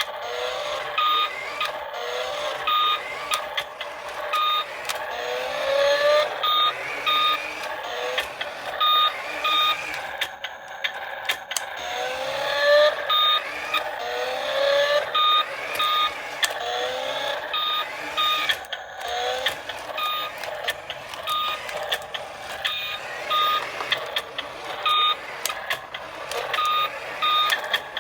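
Electronic sound effects from a toy RC vehicle: short beeps repeating about twice a second, over short rising whines like a synthesized engine revving.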